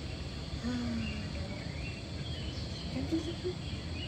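Outdoor garden ambience of insects and birds chirping faintly over a steady low rumble.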